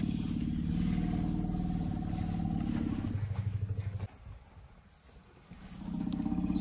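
African elephant rumbling at close range: a long, deep, throaty rumble that stops abruptly about four seconds in, then a second rumble rising near the end.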